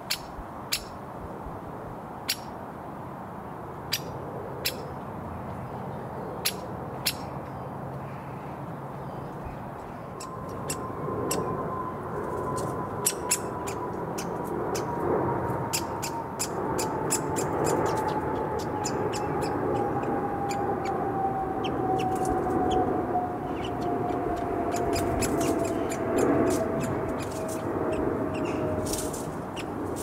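Woodpecker fledgling in the nest hole making sharp, short begging calls: a few scattered at first, then coming thick and fast from about a third of the way in. Under them is a steady road-traffic hum that grows louder at that point, with a long drone falling slowly in pitch.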